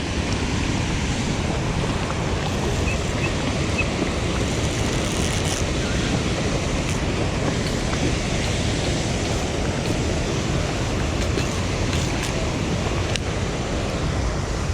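Steady rush of river water pouring below a dam, an even noise with no breaks.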